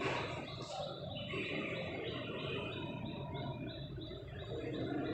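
Rhythmic chirping in the background, about three chirps a second, from a small animal such as a cricket or bird, with pages of a textbook being leafed through.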